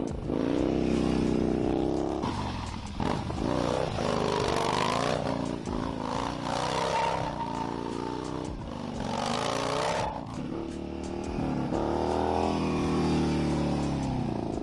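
2014 Yamaha Bolt's V-twin engine with an upswept exhaust pipe, revved hard again and again, its pitch rising and falling several times.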